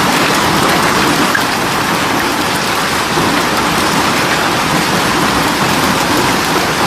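Heavy storm downpour pelting surfaces hard: a dense, steady hiss of countless impacts.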